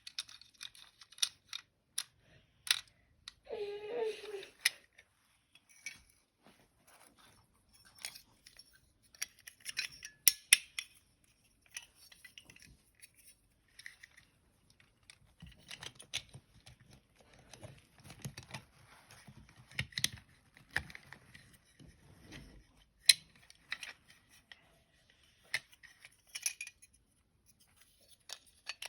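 Scattered small clicks, ticks and light rattles of small hard parts and tools being handled, denser in the middle. A short pitched sound comes about four seconds in.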